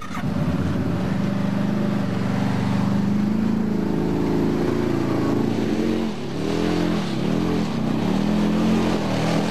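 Hisun UTV engine starting up and running, then revving up and down several times in the second half as the vehicle drives off.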